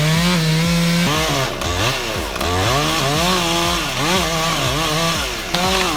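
Two-stroke chainsaw running at high revs as it cuts into a large cedar, its pitch repeatedly sagging and recovering as the chain loads up in the cut.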